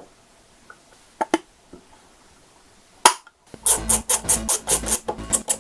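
A few light clicks and taps of painted panel parts and the display module being handled and fitted, then, after about three and a half seconds, background music with a steady beat starts and is the loudest thing.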